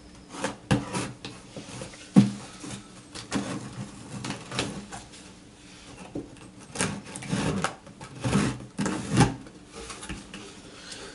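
Knife cutting open the tape on a cardboard shipping box: irregular scraping strokes and knocks, the loudest about two seconds in, with a busier run of strokes later on.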